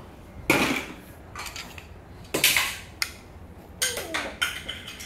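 Hard plastic toys clattering as they are dropped into a plastic Mega Bloks storage bucket: one sharp clatter about half a second in, another about two and a half seconds in, then a quicker run of several clatters near the end.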